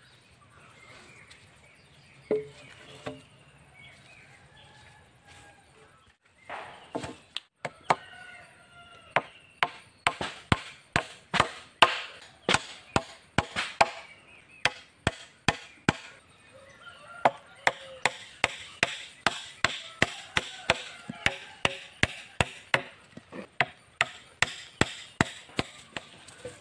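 Hammer nailing wooden slats onto a peeled wooden pole: sharp wood-on-metal blows, a few scattered at first, then a steady run of about two a second from several seconds in.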